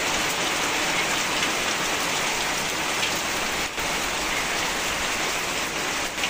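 Steady rain falling on leafy garden plants and the yard, with one brief dip a little past halfway.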